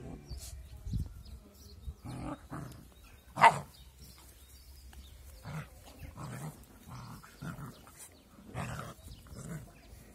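Puppies play-fighting, giving a string of short growls and yips about once a second, with one sharp, much louder cry about three and a half seconds in.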